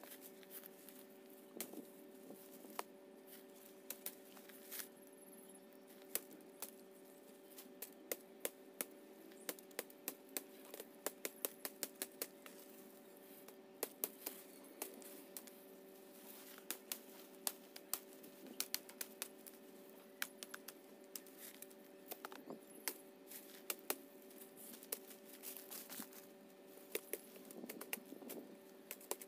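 Kukri machete chopping woody weed stems: a long run of sharp, irregular chops and cracks, coming in quick flurries of several a second.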